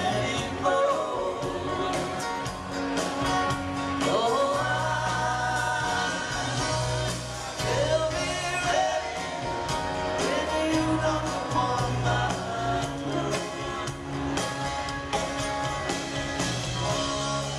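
A live string band playing a song, with a man singing lead over acoustic guitar, mandolin, fiddle, bass and drums, heard from the audience through a small camcorder's microphone.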